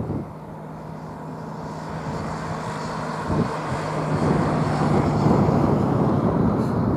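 Lockheed C-130 Hercules's four turboprop engines running as the aircraft rolls slowly along the runway after landing: a steady droning hum that grows louder from about two seconds in.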